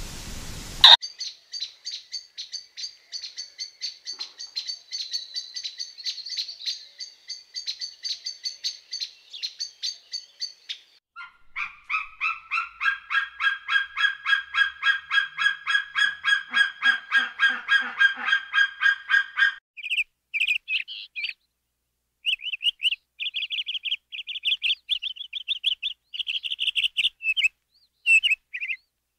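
High-pitched chirping calls from an animal, repeated in rapid runs of several notes a second. The calls change abruptly about a second in, about eleven seconds in and near twenty seconds in; the middle run is lower and fuller than the others.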